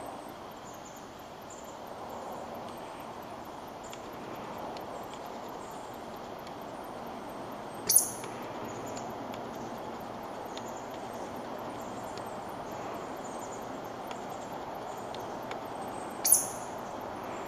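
Steady outdoor background hiss with faint, scattered high bird chirps, broken twice by a sharp, very short high-pitched click, once midway and once near the end.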